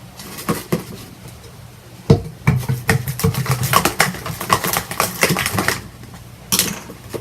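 Sticky homemade slime made from a peel-off face mask being squeezed and pulled in the hands: a quick run of wet clicks and pops from about two seconds in to near six seconds, with one more short burst near the end.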